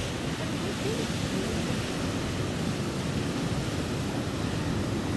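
Steady rush of ocean surf, with wind rumbling on the microphone.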